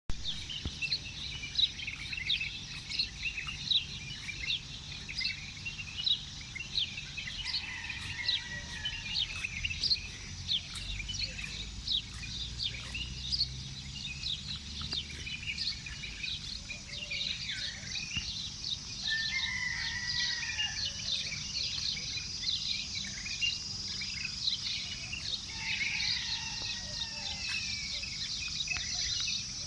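A dense morning chorus of many small birds chirping rapidly and continuously, over a steady high buzz and a low background rumble. A few longer, lower drawn-out calls stand out about every ten seconds.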